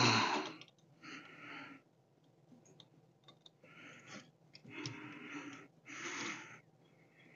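A man breathing hard, close to the microphone: short hissing breaths in and out, roughly one a second and unevenly spaced, with a few faint clicks between them.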